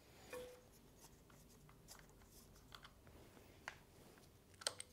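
Near silence with a few faint, scattered clicks and light rubbing as the small bolts of a motorcycle's oil filter cover are turned out by gloved fingers.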